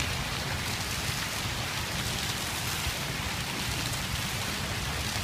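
Outdoor fountain: water pouring over a stone ledge and splashing into a pool, a steady rushing splash.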